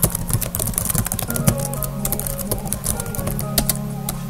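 Computer keyboard keys clicking in a quick run as a command is typed, over background music with held notes.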